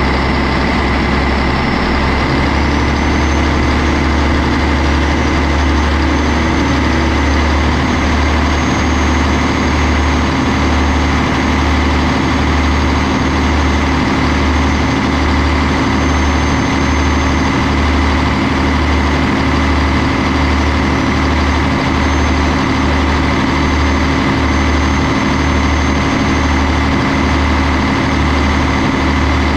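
Yanmar 6CZ six-cylinder turbocharged marine diesel running steadily on a test run after servicing of its heads and fuel valves, with an even low beat and a high turbo whine over it. About two to three seconds in, the engine speed and the whine step up slightly, then hold steady.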